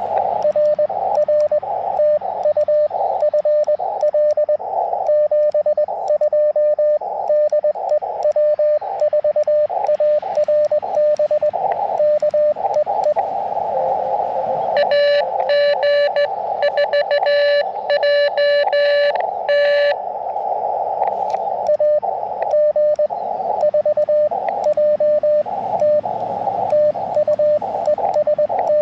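Morse code (CW) on the 30-meter band from an Elecraft KX2 transceiver: a single keyed tone beeping out dits and dahs over a steady hiss of band noise. About 15 seconds in, a louder, brighter run of keying lasts about five seconds: the radio's sidetone as the operator sends.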